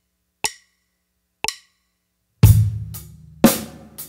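Two count-in clicks a second apart, then a drum kit comes in about two and a half seconds in with a slow rock groove at 60 beats per minute: loud kick and snare strokes once a second with quieter hi-hat strokes between.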